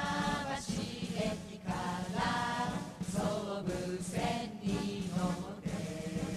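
Background music: chant-like singing over a steady low drone.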